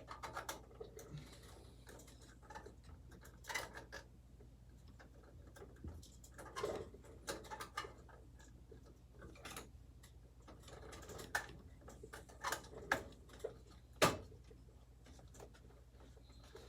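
Scattered light clicks and taps as a full-size ATX motherboard is pushed into place against its metal I/O faceplate in a PC case, the sharpest click about fourteen seconds in. A steady low hum lies underneath.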